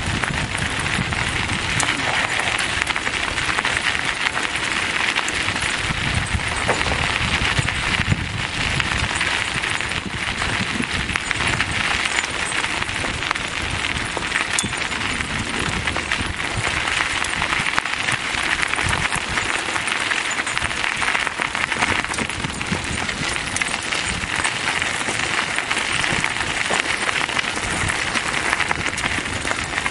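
A bicycle rolling over a gravel track: steady tyre crunch and rattle with many small clicks and knocks, over a low uneven rumble.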